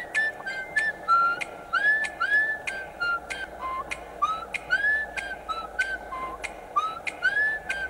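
Birds calling: a steady run of short whistled notes, many sliding upward, a few each second, mixed with sharp clicking ticks.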